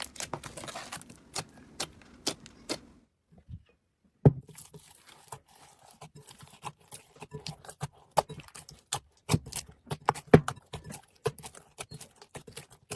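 Hands squeezing and poking a crunchy slime packed with foam beads, giving irregular crackling clicks and pops. About three seconds in the sound drops out for about a second, then the crackling resumes.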